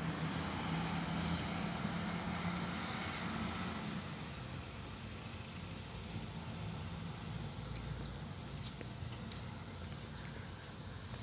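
Open-air ambience: a steady hiss of outdoor background noise with small birds chirping here and there. A low hum sits under it for the first few seconds, then fades.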